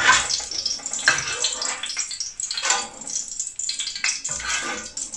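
Hot oil sizzling in an aluminium balti pan as fried onion and pepper strips are lifted out with a metal ladle, with about four scrapes and clinks of the ladle against the pan.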